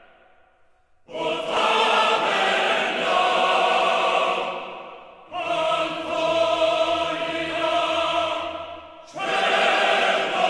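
Choir singing sustained chords in three long phrases, each about four seconds, after a moment of near silence at the start.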